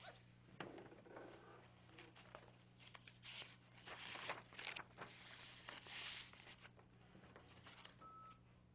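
Faint rustling of paper sheets being handled and shuffled, loudest in the middle, with a few small clicks, over a steady low hum.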